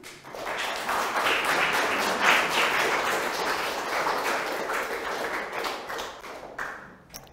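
Audience applauding to welcome the speaker, the clapping dying away near the end.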